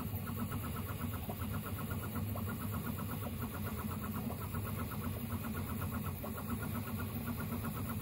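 Original Prusa 3D printer printing: its stepper motors chirp in quick repeated bursts as the print head moves back and forth, over a steady low hum.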